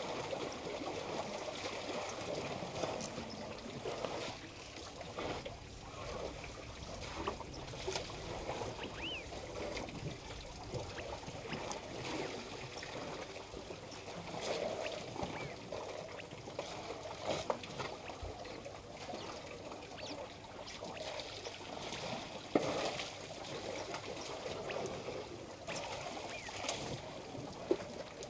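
African elephants drinking at a waterhole: water sloshing, trickling and splashing irregularly as their trunks draw it up and pour it into their mouths.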